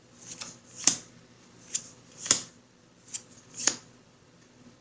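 Playing cards handled in the hands and slid over one another, giving about six short snaps and swishes.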